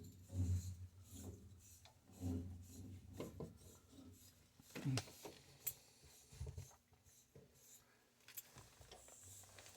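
A cloth rubbing on a copper pipe fitting in irregular strokes, wiping off soldering flux, with a few louder handling bumps.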